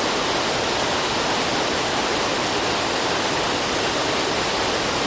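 Running water rushing steadily, an even, unbroken hiss and roar with no changes.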